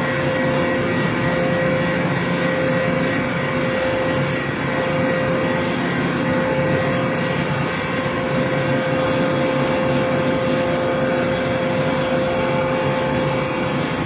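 HBL630 double-cylinder horizontal bagging straw baler running while it pushes out a finished bale: a loud, steady machine hum with a clear high whine held at one pitch throughout.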